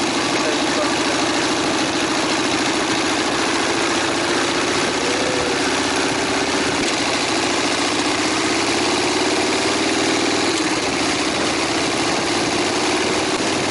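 Harley-Davidson Sportster's V-twin engine running as the motorcycle is ridden, heard with a steady rush of wind noise. The engine note rises slowly a little past the middle, then drops.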